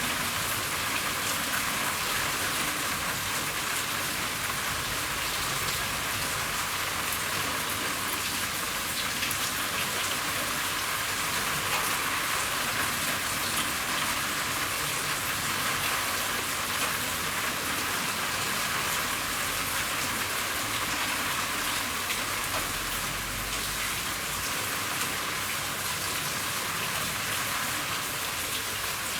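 Steady rain falling on a roof, a constant hiss dense with individual drop patter.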